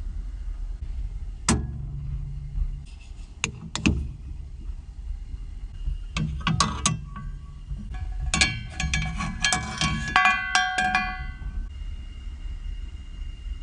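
Knocks and clinks of hard objects being handled, a few separate ones and then a quick cluster in the second half, some ringing briefly, over a steady low rumble.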